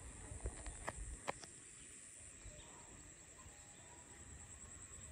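Faint evening ambience over flooded paddy fields: a steady, high-pitched insect chorus that becomes a fine pulsing trill after about two seconds, with three short sharp clicks in the first second and a half.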